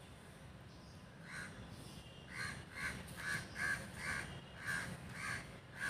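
A crow cawing repeatedly: one caw a little over a second in, then a quick series of about eight caws, roughly two a second.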